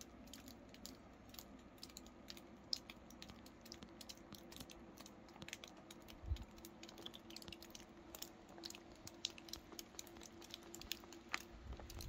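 Quiet background with faint, scattered small clicks and crackles, and one soft low thump about six seconds in.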